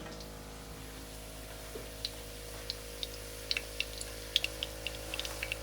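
Potato latkes shallow-frying in oil in a pan: scattered small pops and crackles of spattering oil, sparse at first and coming more often toward the end, over a steady low hum.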